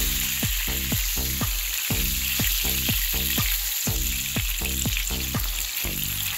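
Burger patty sizzling in hot oil in a non-stick frying pan as it is flipped with a spatula, a steady hiss. Under it runs a low pitched beat that repeats two to three times a second.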